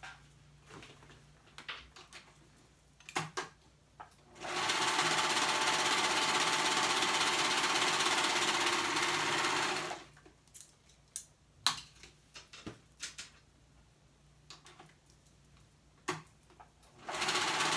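Serger (overlock machine) stitching a seam in one steady run of about five and a half seconds, then stopping. Scattered light clicks come before and after the run, and the serger starts again near the end.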